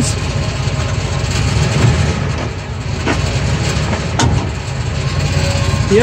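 Idling Ford F-150 engine with about four sharp clunks from the rear driveshaft U-joint as the transmission is shifted back and forth. The clunks are the sign of a worn, failing universal joint.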